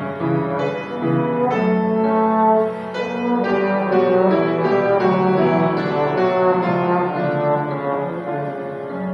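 Trombone and piano playing a slow classical song melody: the trombone holds long sustained notes over piano chords.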